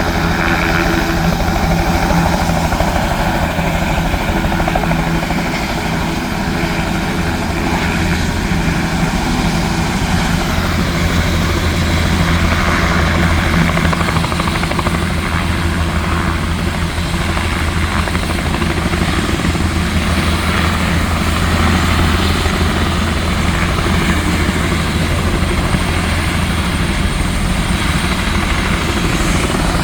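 Helicopter running loud and steady, with its rotor thrum and turbine noise holding throughout.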